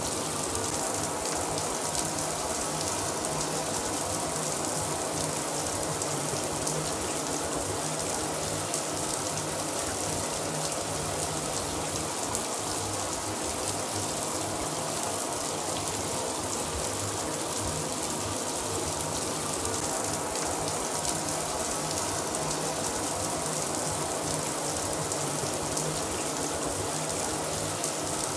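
Shower running steadily, a continuous spray of water splashing down with no change in level.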